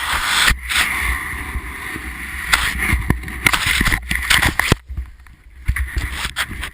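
Snowboard sliding and scraping over snow, a steady hiss with low wind rumble on the helmet-camera mic and a few knocks, dying down sharply about five seconds in as the board slows.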